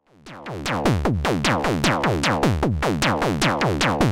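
Electronic synth percussion sequence: a steady run of quick hits, about five a second, each with a pitch that drops sharply. It fades in over the first half second.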